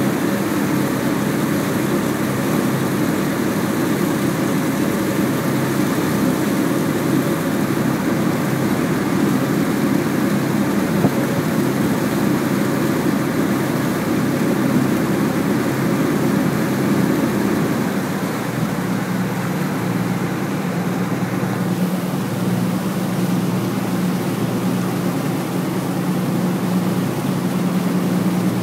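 A CityCat catamaran ferry's diesel engines run steadily under way, a constant drone with a low hum over a rushing hiss. About two-thirds of the way through the engine note changes: the deeper rumble eases, a steadier hum comes forward, and the hiss lessens soon after.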